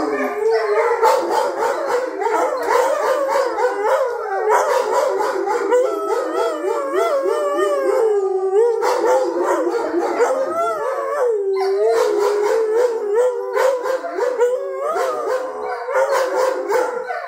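Several wolfdogs howling together in a chorus, many wavering pitches overlapping without a break.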